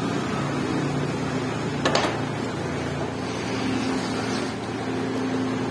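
The iron hatchet head knocks once against the plastic jar as it goes in, then water is poured from a plastic bottle into the jar onto it, over a steady low hum.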